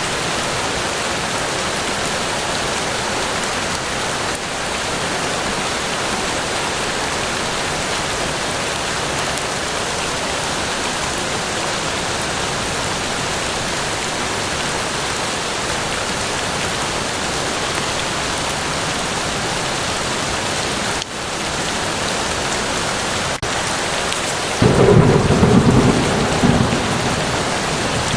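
Steady rain falling. Near the end a low rumble of thunder rises for two or three seconds, louder than the rain.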